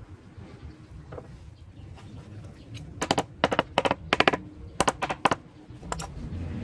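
Small hammer tapping nails into a wooden frame: about a dozen sharp taps in quick groups, starting about three seconds in and stopping near the end.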